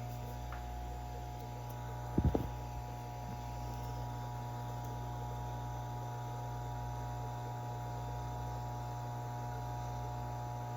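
Steady low electrical hum, with one brief low thump about two seconds in.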